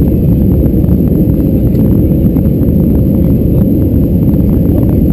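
Steady loud rumble inside the cabin of an Airbus A319 in flight: its CFM56 engines and the airflow over the fuselage, heard by the window, with a rapid patter of small ticks over it.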